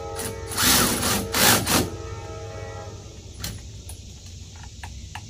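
Cordless power wrench running in two short bursts, a motor whine under loud rattling noise, snugging down a lock nut on the car's front suspension; a few light clicks follow.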